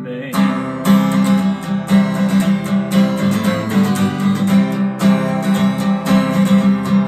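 Acoustic guitar strummed in a steady rhythm, an instrumental break in a worship song, with the last sung word trailing off right at the start.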